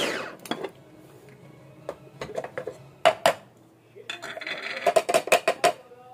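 Plastic parts of a Preethi electric vegetable chopper being handled as its lid is taken off and chopped cabbage is scraped out of the bowl. The motor's whine falls away at the very start, then come scattered plastic clicks and knocks: two sharp ones about three seconds in, and a run of clattering from about four to six seconds.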